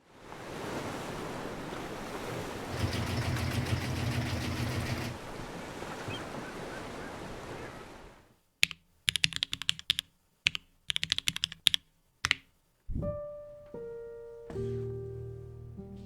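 Mechanical keyboard typing: sharp clacking keystrokes in quick bursts for about four seconds, following a stretch of steady hiss-like noise. Music with sustained notes that step in pitch comes in near the end.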